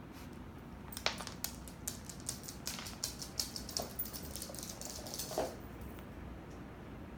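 A dog eating: a run of quick crunching clicks for about four and a half seconds, with a brief squeak near the end.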